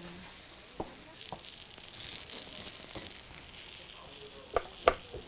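Egg-battered zucchini and mushroom jeon sizzling in oil in a stainless steel frying pan, a steady hiss, with a few sharp clicks about a second in and near the end.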